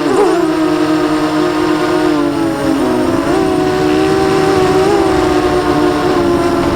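Eachine Falcon 250 racing quadcopter's motors and propellers whining in flight, heard from the onboard camera. The pitch shifts with the throttle, dipping about two and a half seconds in and rising again a little later.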